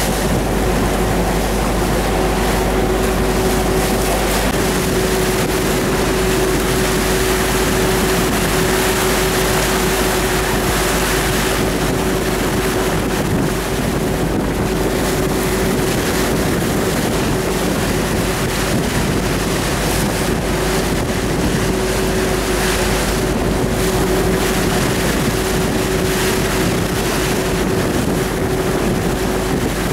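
Boat engine running at a steady cruise with a constant hum, under the rush of wind on the microphone and the wash of choppy water against the hull.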